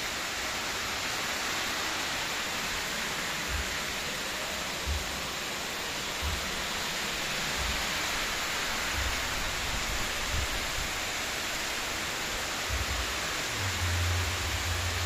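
Heavy rain falling steadily, a dense even hiss, with irregular low rumbles that grow stronger near the end.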